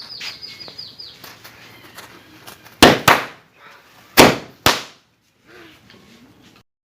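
Firecrackers exploding: four sharp, loud bangs in two quick pairs about a second apart, after a few seconds of faint crackling.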